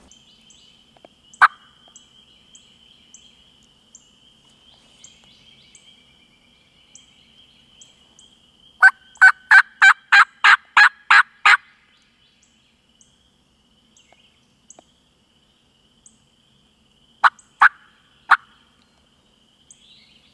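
Turkey call sounding hen yelps: a single yelp about a second in, a run of about ten evenly spaced yelps around the middle, and three more near the end.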